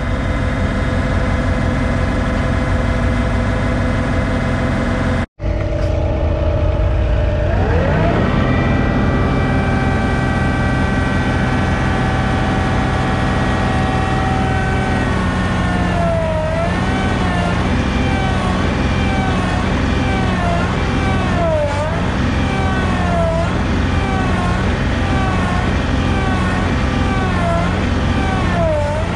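Compact tractor's diesel engine running hard under load. Its pitch climbs about eight seconds in, then repeatedly sags and recovers, about once every second and a half. The sound cuts out for an instant about five seconds in.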